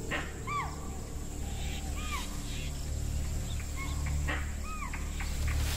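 Short, high yelping animal calls, several times, each rising and falling in pitch: alarm calls raised at a prowling leopard. Sharp clicks come between the calls, over a low steady drone.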